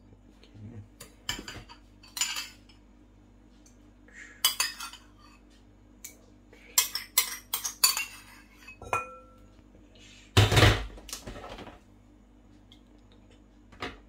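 Metal spoon scraping and clinking against a glass mixing bowl as thick yogurt is spooned in, in scattered irregular knocks, with one brief ringing clink. A heavier knock a little past halfway through is the loudest sound.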